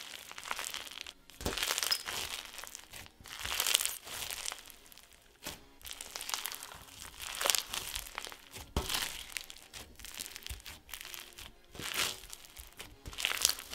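Foam-bead slime being squeezed, folded and stretched by hand, crunching and crackling as the beads rub and pop. It comes in irregular bursts every second or two.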